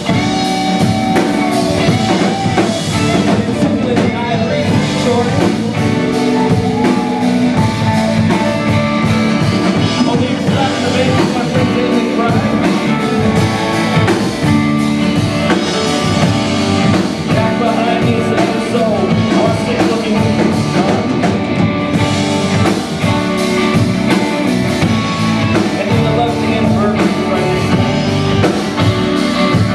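Live rock band playing: drum kit, bass guitar and electric guitar together at full level.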